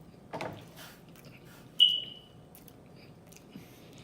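A person chewing food close to the microphone, with soft mouth and biting sounds. About two seconds in comes one sharp, high-pitched ping that rings briefly and fades.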